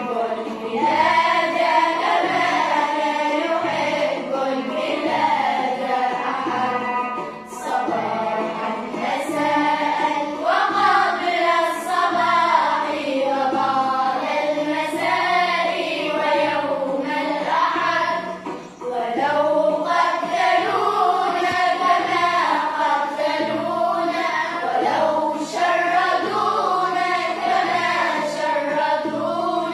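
Children's choir of girls singing a song together, the melody going on without a break.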